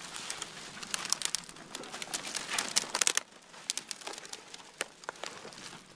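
Small fire of birch bark and thin split kindling crackling as it catches, with dense sharp crackles for about three seconds, then fewer and sparser.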